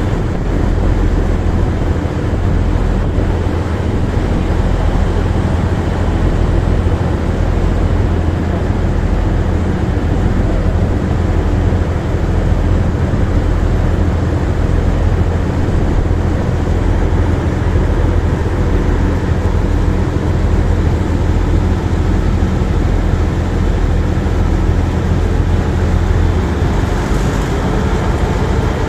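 River passenger motor ship's diesel engine running steadily, heard on board as a loud low drone under a rushing haze of water and wind; the lowest hum eases slightly near the end.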